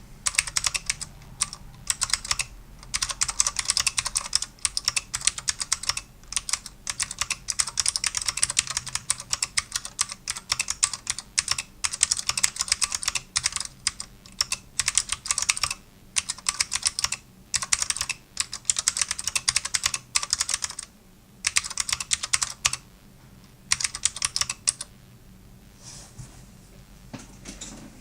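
Fast typing on a mechanical keyboard with SMK blue Alps switches mounted on a 1.5 mm aluminium plate: dense runs of sharp key clicks broken by short pauses, stopping about 25 seconds in.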